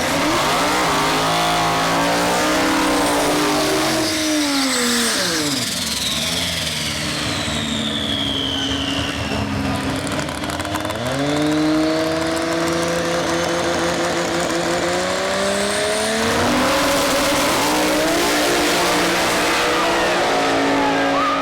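Turbocharged drag-race Toyota Tacoma engine running hard at high revs, with a high turbo whine over it. The pitch falls away about four to six seconds in, climbs again around ten seconds, and steps up once more a few seconds later.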